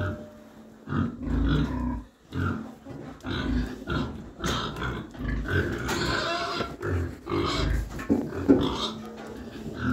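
A pregnant sow grunting repeatedly, short low grunts about once a second.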